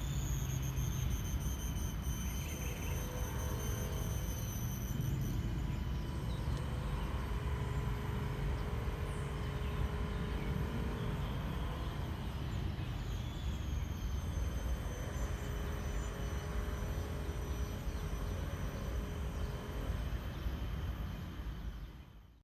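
Outdoor ambience: a steady low rumble like distant traffic, with a few thin, steady high-pitched tones over it, fading out near the end.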